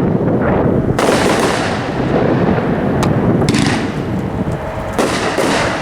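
A Legend 500 gram consumer fireworks cake, Rage in the Cage, firing in continuous loud booms and crackle, with fresh volleys breaking about a second, three and a half seconds and five seconds in.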